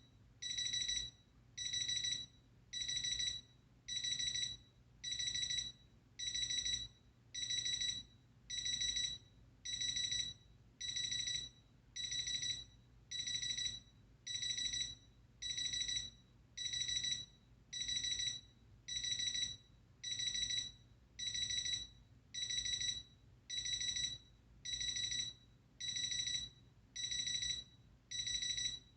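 Capello Big Time CA-35 alarm clock's alarm going off: bursts of rapid, high-pitched electronic beeping, repeating about once a second at a steady level.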